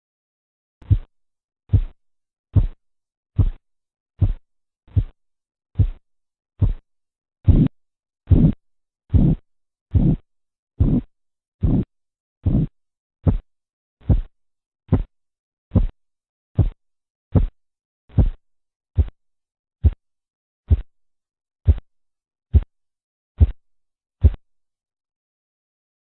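Korotkoff sounds heard through a stethoscope over the brachial artery as the blood-pressure cuff deflates: a steady series of soft thuds about 72 to the minute. They appear about a second in, grow louder through the middle and then fade and stop near the end. Their first appearance marks the systolic pressure and their disappearance the diastolic.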